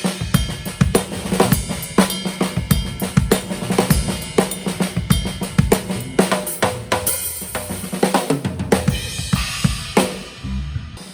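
Yamaha Maple Custom Absolute drum kit with Zildjian cymbals played in a busy groove with fills: kick, snare and hi-hat, with a cymbal crash about seven seconds in.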